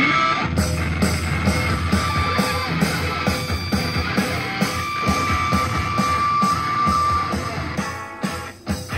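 Guitar-driven rock music with a steady beat of about two strokes a second, played back through a pair of KLH Model 403A indoor/outdoor speakers. The music briefly drops in loudness near the end.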